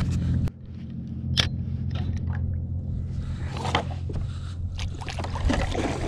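Water sloshing and splashing around a kayak, with a few sharp knocks and scrapes on the hull and gear, over the steady low drone of a motorboat's engine. The drone drops suddenly about half a second in, and the splashing grows louder from about three seconds in.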